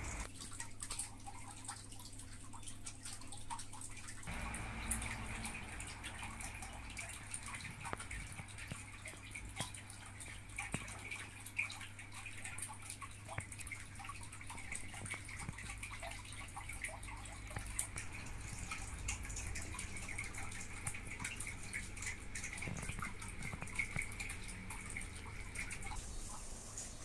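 Typing on a Royal Kludge RK61 compact mechanical keyboard: a long run of quick, irregular key clicks.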